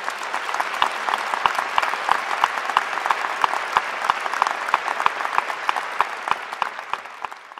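Large audience applauding, a dense, steady clapping that fades out near the end.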